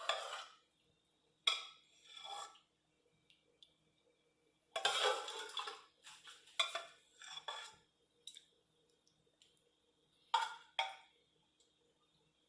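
A spoon scraping and clinking against a pot and a plate as food is dished out, in scattered strokes with pauses between them. The longest run of scraping comes about five seconds in, and two sharp clinks come near the end.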